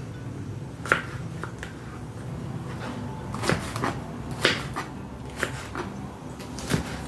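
Kitchen knife cutting bell peppers on a cutting board: scattered short knocks at uneven intervals.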